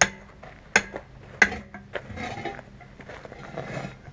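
Steel tire bar on a manual tire changer, clanking against the wheel rim and machine three times in the first second and a half, then scraping as it is cranked around to work the heavy truck tire's bead off the rim.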